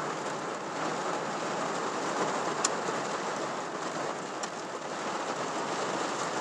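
Heavy rain drumming on a truck's roof and windshield, heard from inside the cab as a steady hiss. Two sharp ticks come through, one about midway and one a little after.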